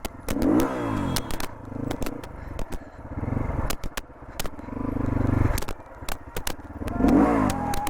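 Motorcycle engine running and revving up and down, rising in pitch about half a second in and again near the end, with many sharp clicks and rattles from riding over a rough dirt trail.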